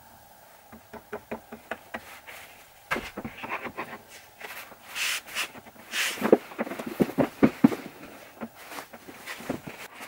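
A plywood board being laid down and shifted on a bandsaw's metal table: a string of knocks with short scraping slides. Before it comes a run of quick, light clicks.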